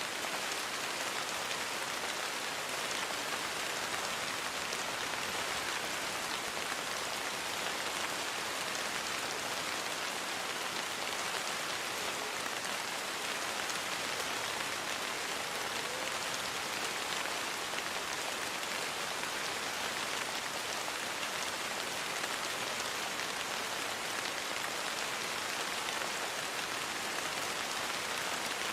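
Steady rainfall, an even hiss of many drops on a surface with no let-up or change.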